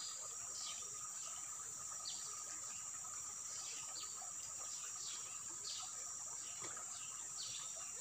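Insects shrilling in a steady, high, even drone of forest ambience, with short falling chirps repeated about once a second.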